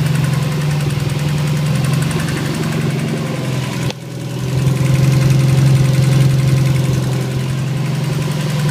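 Subaru STI's turbocharged flat-four engine idling with a steady rapid tapping/knocking, a noise that began after antilag was set up and which the owner thinks is something in the valve train rather than rod knock. The level dips briefly about four seconds in, then the engine picks up again.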